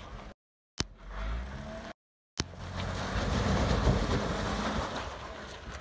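Jeep Wrangler Unlimited engine running as the Jeep crawls up a rock ledge, getting louder as it works harder for a couple of seconds from about two and a half seconds in, then easing off. The sound drops out completely twice, briefly, near the start.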